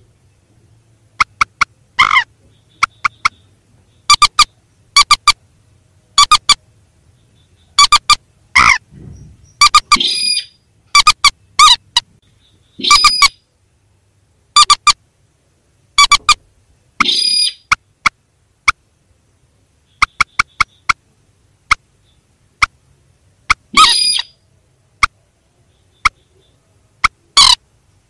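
Rail calls (mandar and sintar birds): sharp, short, clear notes given singly or in quick runs of two to four, repeating every second or so.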